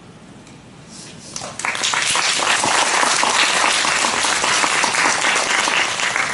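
A quiet hall, then audience applause breaks out about a second and a half in and quickly swells to steady clapping.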